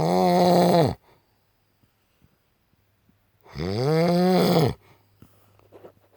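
A man snoring loudly: two long, pitched snores, one at the start and another about three and a half seconds in, each lasting about a second.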